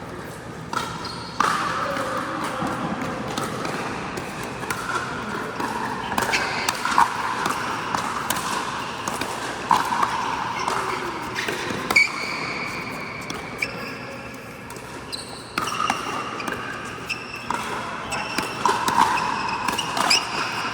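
Pickleball play: sharp pops of paddles striking the plastic ball at irregular intervals, echoing in a large indoor hall.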